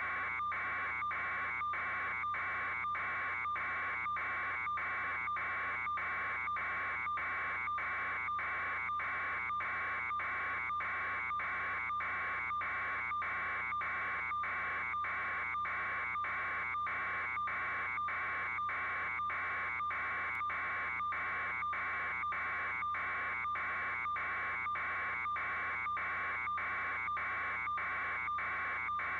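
A steady, even buzz with a fairly high hum at its core, broken by very short regular dropouts about twice a second.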